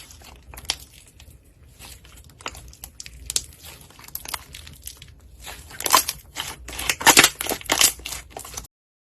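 Slime being squeezed and worked by hand, making a run of small sticky clicks and crackles that grow denser and louder in the last few seconds, then stop abruptly.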